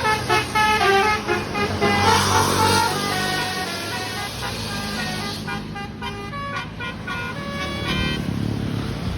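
A bus's telolet musical horn plays a quick tune of short stepped notes over the bus's low rumble. The tune grows fainter in the second half.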